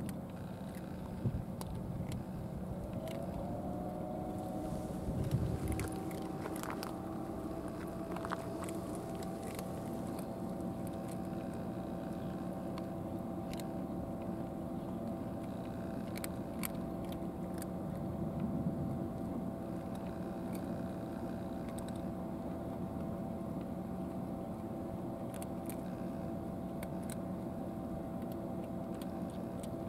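Cats crunching dry kibble, with small crisp clicks scattered throughout. Under it, a steady engine hum comes in about three seconds in, rises slightly, then holds an even pitch.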